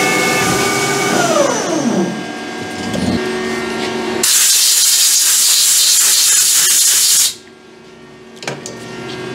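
Lathe spindle turning an aluminium air-cylinder end, its whine falling in pitch as it winds down at the end of the cut. A loud hiss follows for about three seconds and then cuts off suddenly, and a single knock comes near the end.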